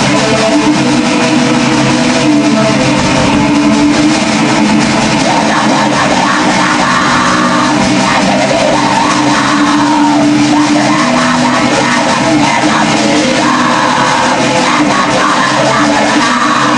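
Black metal song from a demo recording: distorted electric guitars and drums playing continuously, with harsh yelled vocals.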